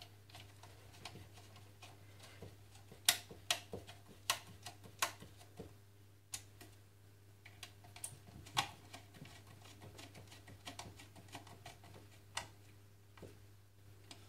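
Fixing screws being tightened beneath a plastic heating-control receiver box on its wall plate: irregular sharp clicks and small plastic knocks, bunched together about three to five seconds in, with single louder clicks near nine and twelve seconds. A faint steady low hum lies underneath.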